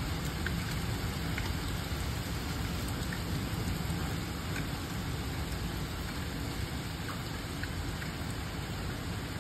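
Heavy rain and hail pouring down steadily, with scattered sharp ticks of hailstones striking hard surfaces.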